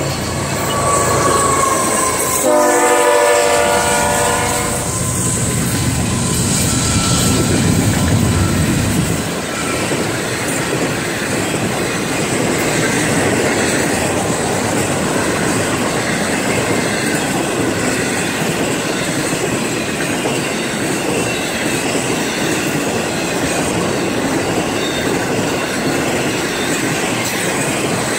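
Florida East Coast Railway intermodal freight train passing close by. Its diesel locomotives sound a multi-note horn blast about two to five seconds in and go by with a low engine rumble that fades near ten seconds. After that the trailer and container flatcars roll past in a steady rush, with wheels clicking over the rail joints.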